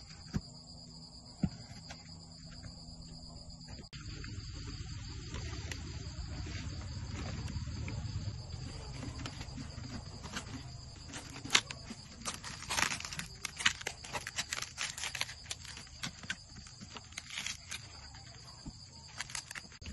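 Banana leaves crinkling and rustling as they are pressed and folded over the mouth of a clay pot, starting about four seconds in, with a run of sharp crackles in the second half. A steady high-pitched insect chorus runs underneath.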